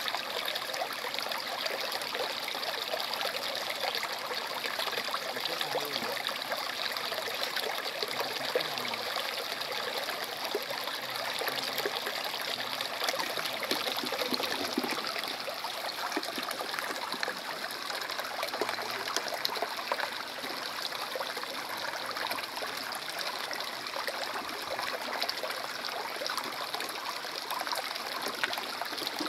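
Shallow stream trickling over stones, a steady rush of water.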